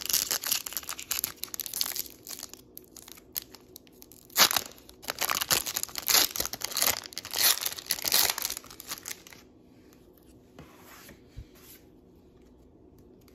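Foil trading-card pack being torn open and crinkled by hand: a run of crackling rips, loudest about halfway through. After about nine and a half seconds it goes quiet apart from a few faint clicks.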